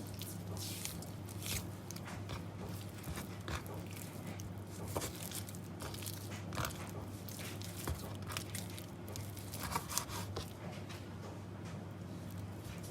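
Raw chicken thighs being handled and cut: irregular wet crunches, scrapes and clicks over a steady low electrical hum.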